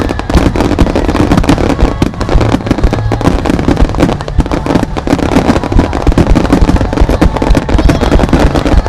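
Starmine fireworks barrage: shells launching and bursting in rapid, unbroken succession, a dense run of bangs and crackles with no pause.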